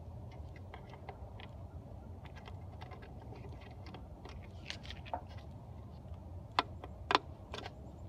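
Screwdriver backing out plastic screws from a plastic engine-bay cover: a run of small clicks and taps, with two louder sharp clicks near the end, over a low steady rumble.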